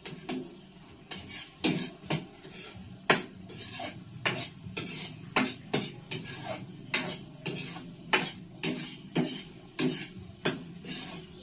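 Metal ladle knocking and scraping against a pan while stirring gravy, with sharp clinks about twice a second.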